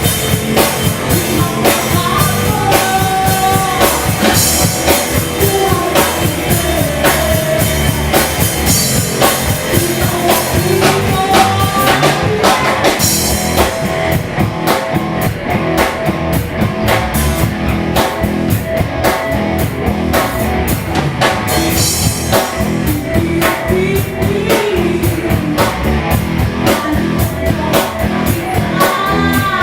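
A rock band playing live: steady drum kit beat and guitars, with a sung lead vocal.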